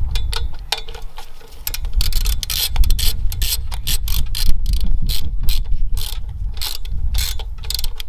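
Hand socket ratchet clicking in repeated quick runs as it drives a nut on a terminal.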